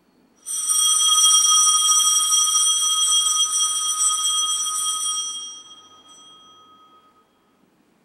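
Altar bells rung at the elevation of the chalice after the consecration, a bright, shimmering ringing of several clear tones that goes on for about five seconds and then dies away.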